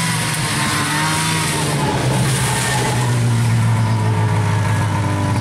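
Polaris Classic snowmobile engine running as the sled drives up close and passes by. The engine note drops slightly in pitch about two seconds in and is loudest around three to four seconds in.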